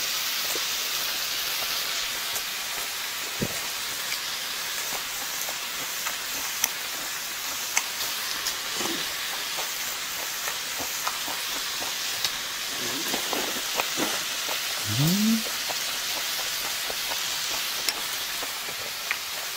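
Pork belly slices sizzling on a griddle: a steady frying hiss with scattered small pops. Around fifteen seconds in there is a short rising hum.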